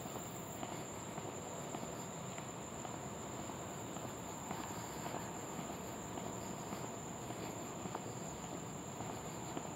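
Crickets chorusing in the dark woods: a steady, unbroken high-pitched trill, with a few faint scattered clicks.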